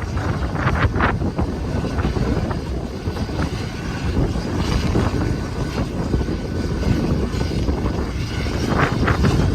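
Strong wind buffeting the microphone over the steady running of a distant medical helicopter.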